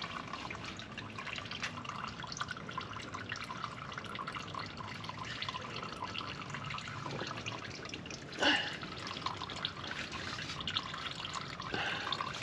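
Used engine oil dripping and trickling from the oil pan's drain hole into a drain pan, the last of the oil as the drain nears its end. A single sharp knock about two-thirds of the way through.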